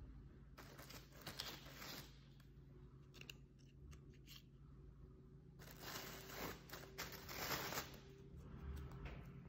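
Faint crisp crackling and crunching of fried tortilla chips being handled and pressed into a bowl of ceviche, in two bursts: one about half a second in lasting a second and a half, another from about six to eight seconds, with a few small clicks between.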